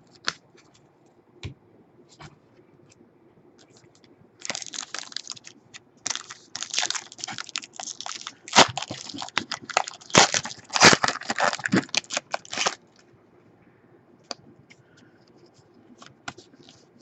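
A trading card pack's wrapper being torn open and crinkled: a run of crackling, tearing noises lasting about eight seconds, with a few light ticks before and after.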